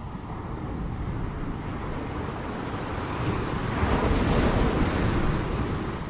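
Ocean surf washing against a shore, a steady low rush of water. A wave swells and breaks loudest about four seconds in, then eases back.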